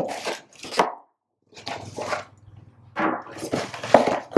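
Cardboard ration box being torn open by hand: packing tape ripping and cardboard flaps scraping and pulling apart in several short bursts, with a brief break about a second in.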